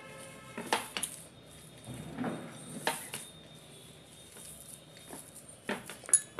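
Hands kneading crumbly chhena with sugar on a glass plate, the curd rustling softly, with a few sharp clicks of the hand knocking the glass: about a second in, near three seconds, and twice near the end.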